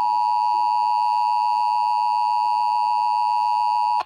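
Emergency Alert System attention signal: the steady two-tone EAS alert tone, held without change and cutting off abruptly near the end, announcing an EAS test.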